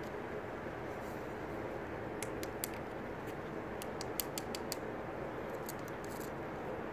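Steady outdoor background hiss, broken by three short clusters of sharp, high clicks and ticks.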